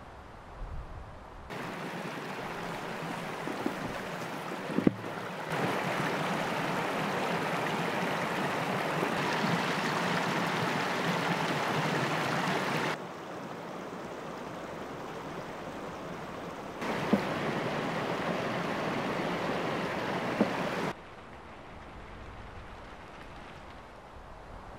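Shallow creek running over stones between icy, snow-covered banks: a steady rush of water that jumps abruptly louder or softer a few times. A few sharp clicks are heard.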